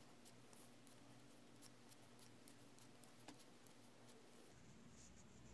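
Near silence, with faint, irregular light ticks from wooden knitting needles and yarn being worked by hand.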